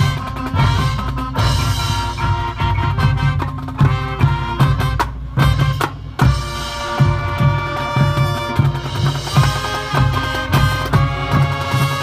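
Marching band music: brass holding chords over a steady drum beat, with a brief dip about five to six seconds in before the full band comes back.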